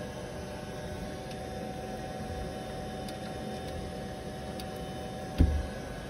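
Steady low hum and hiss with a faint, even whine, broken once by a single dull thump about five and a half seconds in.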